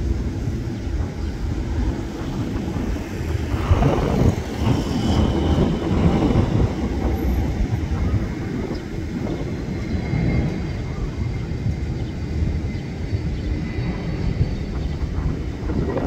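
Diesel-electric locomotive of the SRT's QSY class running as it hauls a passenger train slowly toward the listener. It is a steady low rumble that swells slightly a few seconds in.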